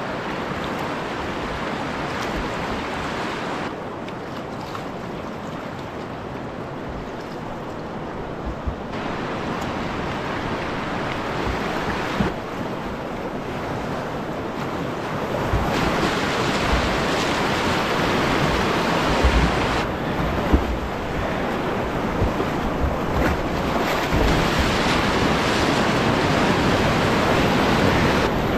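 Rushing whitewater of a flood-high river around a canoe, with wind buffeting the microphone. The rush shifts abruptly in level several times and is louder in the second half as the canoe enters the heavier rapids, with a few low thumps of wind on the microphone.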